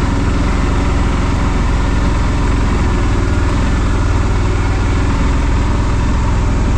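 Can-Am off-road vehicle's engine running steadily while driving, a constant low drone with no revving.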